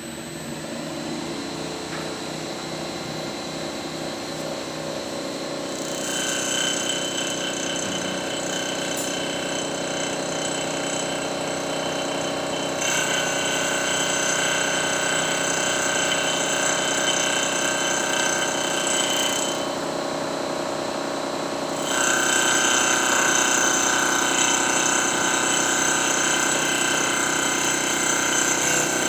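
Mini CNC wood lathe running: a steady spindle motor hum, with a higher whine and cutting noise coming in about six seconds in as the tool works the wood. The whine breaks off briefly twice, once for about two seconds, then returns louder.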